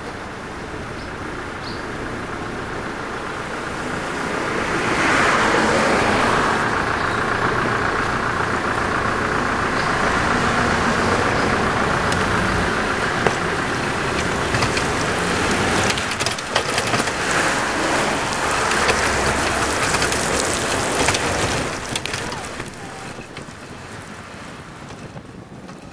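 Road traffic on a wet road: tyres hissing and vehicles running past. It swells about four seconds in, stays loud, and eases off after about twenty-two seconds.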